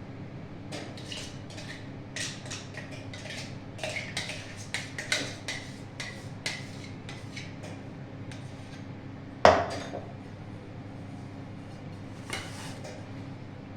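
Metal kitchen utensils clinking and scraping against a steel vessel, with scattered sharp clinks over the first seven seconds. One loud knock comes about nine and a half seconds in, typical of a cake tin of batter tapped down on the counter to release trapped air.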